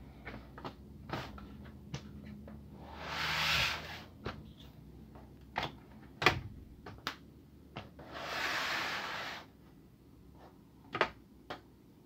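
Plastic bottom case of a Toshiba Satellite C55 laptop being prised apart with a plastic pry tool: the retaining clips snap loose one after another in sharp clicks, with two longer scraping passes as the tool slides along the seam, about three and eight seconds in.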